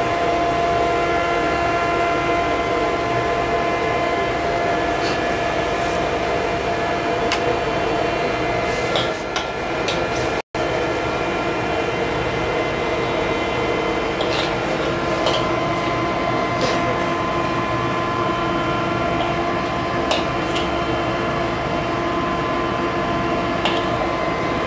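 Steady machine hum holding several pitches over a noisy background, with a few light clicks in the second half as a metal spoon serves food onto a ceramic plate.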